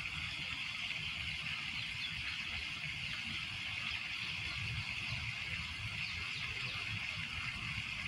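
Lake water lapping, a steady wash of noise with a low rumble underneath and no distinct splashes.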